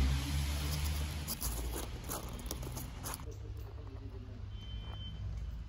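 A low engine rumble from a motor vehicle, loudest at first and fading after about a second, with a few faint clicks and a short high beep near the end.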